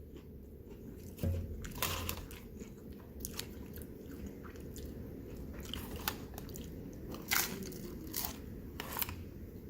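A person biting into and chewing a crunchy taco: scattered sharp crunches between quieter chewing, the loudest about a second in and again around seven seconds.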